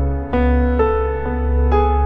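Slow, gentle background music: piano-like notes struck about every half second over a sustained low bass.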